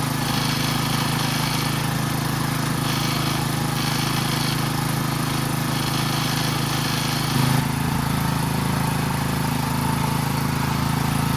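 Small gasoline engine of a pressure washer running steadily, with a short change in its note a little past the middle.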